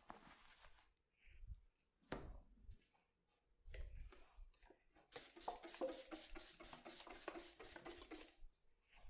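Soft scattered rubbing and handling sounds with a few single knocks, then a fast, even run of light percussive massage taps, about eight a second, lasting about three seconds.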